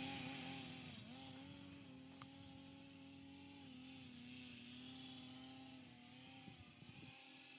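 Distant two-stroke snowmobile engine running at a steady pitch, faint and slowly growing fainter.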